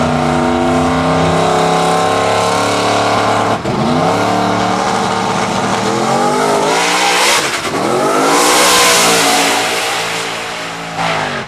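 Fox-body Ford Mustang drag radial car's engine held at a steady high rev on the starting line, then launching a few seconds in. It accelerates hard down the track, the pitch climbing and dropping back at each gear change, and is loudest near the top end before it falls away.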